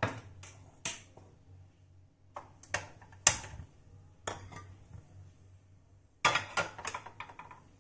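Scattered sharp clicks and knocks of kitchenware being handled, then a rattling clatter about six seconds in as a flat tawa griddle pan is set down on the gas stove's burner grate.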